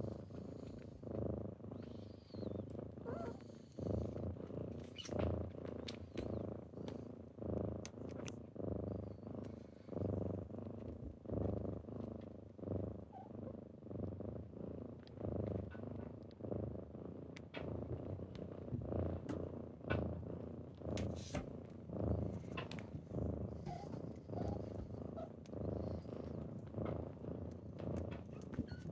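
Kitten purring close up, a steady low rumble that swells and eases with each breath, roughly once a second, with a few faint clicks.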